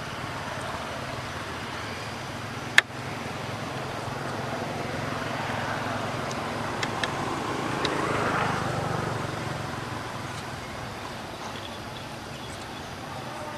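Outdoor background noise with a vehicle passing, growing louder from about five seconds in, loudest near eight seconds, then fading; a single sharp click about three seconds in and a few faint ticks around the loudest point.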